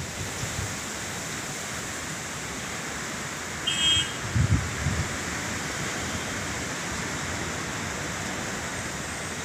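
Strong monsoon wind rushing through leafy trees as a steady hiss, with low gusts buffeting the microphone about four and a half seconds in. A short high beep sounds just before the gusts.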